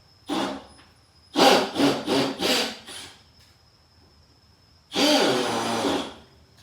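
Hands handling a plastic impact-bit case and steel bits: short rubbing and scraping sounds, a brief one early, four quick ones about a second and a half in, and a longer one near the end.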